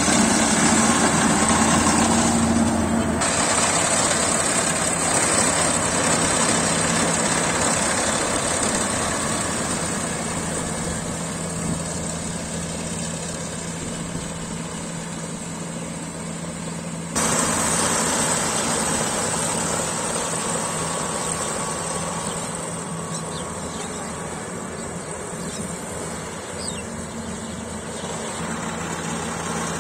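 Engine of a paddy harvesting machine running steadily, a constant hum under mechanical noise. The sound changes abruptly about three seconds in and again a little past halfway.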